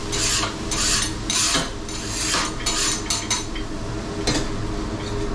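Metal utensil scraping across a hot steel teppanyaki griddle in quick, repeated strokes, as the grill is cleaned and sanitized. The strokes stop after about three and a half seconds, with one more near the end.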